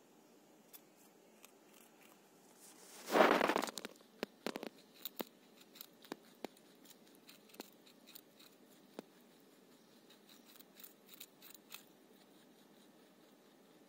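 Dwarf lop rabbit biting into a raw carrot and chewing it, a crisp crunching. The loudest crunch comes about three seconds in, then a long string of small, quick crunching clicks as it nibbles, dying away near the end.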